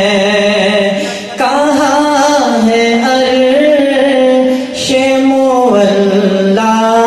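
A man singing a naat, an Urdu devotional poem in praise of the Prophet, unaccompanied, in long held notes with small wavering ornaments. He pauses briefly for breath about a second in and again near five seconds.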